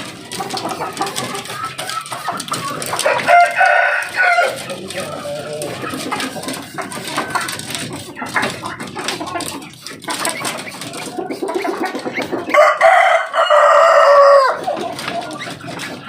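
Chickens clucking, with a rooster crowing twice: a short crow about three seconds in and a longer, loud one near the end.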